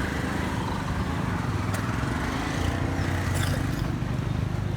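A small engine running steadily with a low rumble, with a couple of short clicks.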